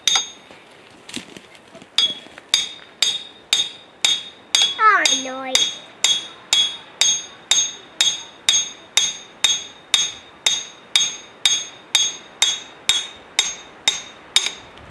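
Hammer tapping steadily on a metal part of a Bobcat 320 mini excavator's hydraulic boom cylinder to drive it up into place: sharp ringing metal strikes about two a second, after a slower start.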